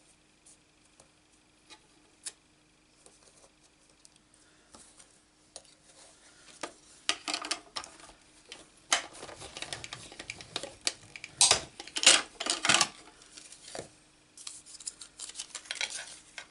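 Hand-cranked die-cutting machine rolling a sandwich of plastic cutting plates and a metal die through its rollers, cutting a lighthouse shape from cardstock, with a dense run of loud cracks and creaks for several seconds past the middle. Before it come light taps of the die and plates being set up, and near the end a softer rustle and clicks as the plates are pulled apart.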